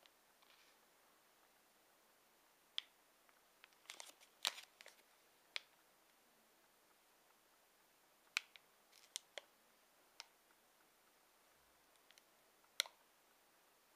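Plastic snack wrapper crinkling and clicking as it is handled and turned over, in scattered short crackles with a small flurry about four seconds in, against near silence.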